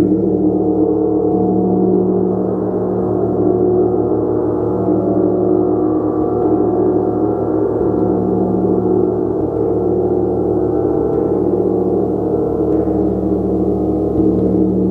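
Gong played continuously: many tones ringing and overlapping in a loud, sustained wash, with the deeper tones slowly swelling and fading.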